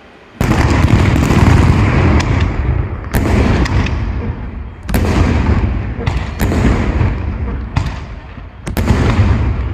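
Fireworks bursting in quick succession: a string of loud bangs, starting suddenly about half a second in and coming every second or so, each with a deep rumbling tail.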